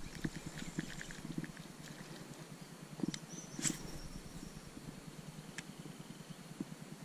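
Fishing reel being cranked on a lure retrieve: a faint, rhythmic low purr with a few sharp clicks, the loudest a little after three and a half seconds in.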